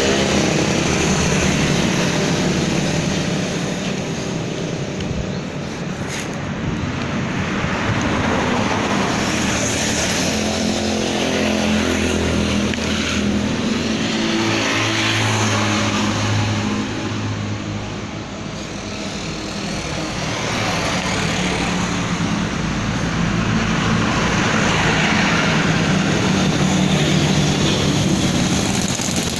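A motor running with a steady hum, its pitch shifting around the middle.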